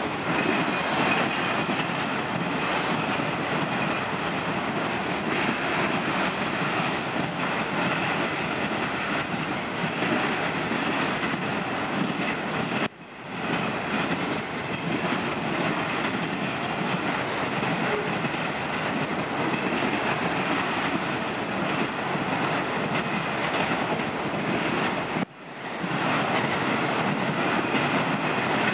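A freight train of autorack cars rolling past: steady noise of steel wheels on rail, which twice drops out briefly and sharply before coming back.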